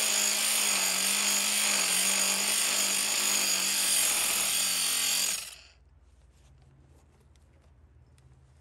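Handheld power tool running steadily with a motor hum under a loud rasping hiss, its pitch wavering slightly as it works; it stops abruptly about five and a half seconds in, leaving only a faint hum and a few soft ticks.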